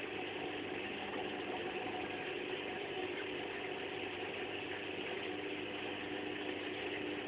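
Washing machine running through its wash cycle, a steady hum and churn with no change in pace.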